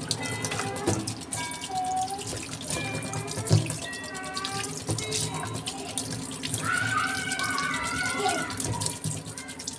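Tap water running into a stainless steel sink as raw shrimp are rinsed by hand, with splashing and small knocks. A sharp knock about three and a half seconds in is the loudest sound.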